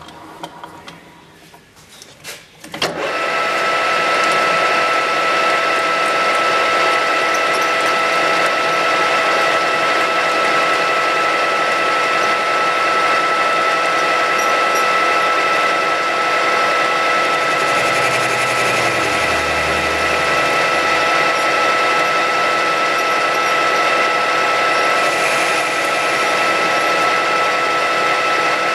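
A few clicks and knocks, then about three seconds in a metal lathe starts and runs steadily with a constant high gear whine, its tool taking a cut on a metal bar held in a three-jaw chuck.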